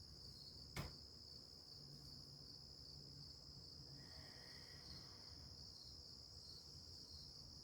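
Faint, steady chirring of crickets, with a single short click about a second in.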